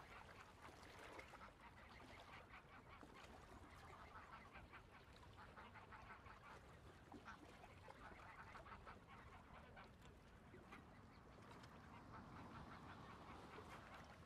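Faint, distant geese and ducks honking and calling, many overlapping short calls over quiet ambience.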